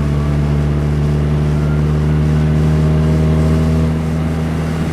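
A 1991 VW Jetta's 1.6-litre turbodiesel engine pulls under boost, heard from inside the cabin as a steady drone that eases off about four seconds in.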